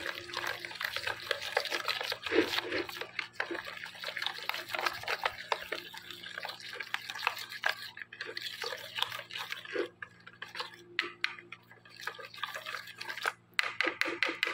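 A fork whisking a wet yogurt, lemon juice and spice marinade in a bowl: rapid wet squelching with quick clicks of the tines against the bowl, broken by a few short pauses.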